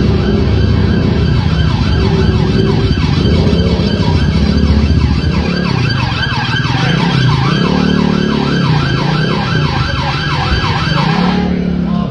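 Police car siren sounding a fast yelp, the pitch sweeping up and down several times a second over low traffic rumble, cutting off suddenly near the end.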